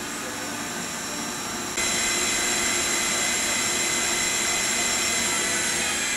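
Otari MTR-90 Mark III multitrack tape machine rewinding a reel of alignment tape at high speed: a steady whirring rush of the reel motors and the tape running past the guides, with a high whine. About two seconds in it steps up louder and brighter as the rewind speeds up, then holds steady.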